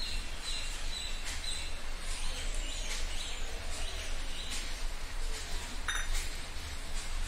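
Soft clinks of stainless-steel dishes as a meal is eaten by hand, with one sharper ringing clink about six seconds in. A few bird chirps sound in the first couple of seconds over a steady low hum.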